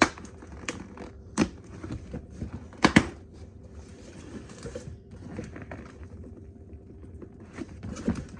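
A package being handled and worked open by hand: a few sharp taps and knocks, the loudest a double knock about three seconds in, then stretches of rustling and scraping.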